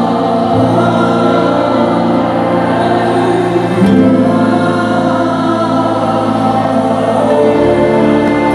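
A women's worship group singing a slow gospel song in harmony, accompanied by acoustic and electric guitar. The chords are held, with the low note changing every three to four seconds.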